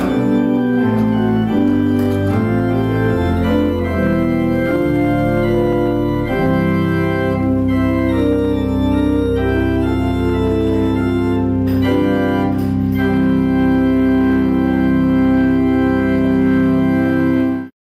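Church organ playing the closing postlude: sustained chords over a moving bass line, which settle about six seconds in into one long held final chord that cuts off abruptly near the end.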